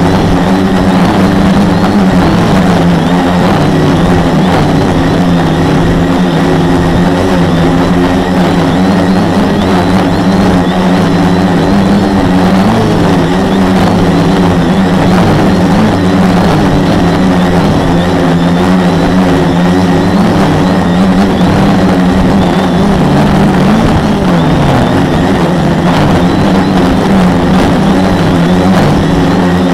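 The quadcopter's four Multistar 2212 920kv brushless motors spinning 10x4.5 propellers in flight, heard through an action camera mounted on the frame: a loud, steady buzz whose pitch wavers with the throttle and dips briefly about 24 seconds in.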